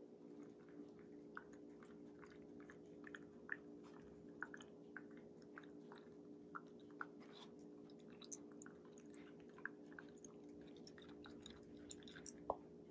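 Shiba Inu chewing food slowly: faint, irregular small clicks and smacks of the mouth, a few a second at times, over a steady low hum.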